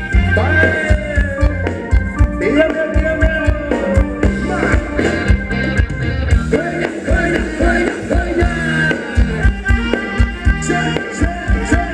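Live band playing Thai ramwong dance music: a sung melody over a steady beat and a heavy bass line.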